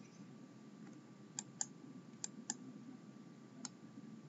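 Faint computer mouse clicks over a low steady room hiss: two quick pairs of clicks, about a second and two seconds in, then a single click near the end.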